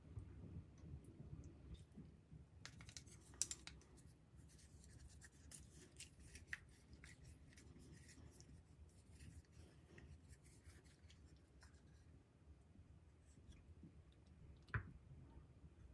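Faint clicks and scrapes of a metal ladle and chopsticks against ceramic plates as sauced fettuccine is twirled and set down, with a sharper clink about three and a half seconds in and another near the end.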